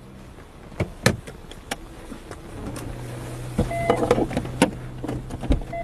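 Car cabin sound while driving slowly in city traffic: a steady low engine hum with scattered sharp clicks and knocks, and a brief higher-pitched tone about four seconds in.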